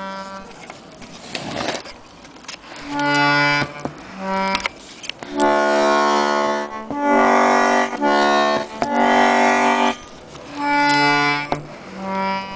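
Vintage Hohner button accordion sounding its reeds: short low notes alternating between two pitches, with a louder stretch of several held, fuller chords in the middle.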